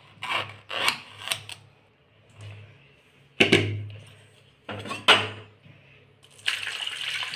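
A knife cutting through raw green plantain, with several quick sharp chops against the cutting surface. Then the plantain pieces are dropped into a metal pot with a few knocks. Near the end, water starts pouring into the pot.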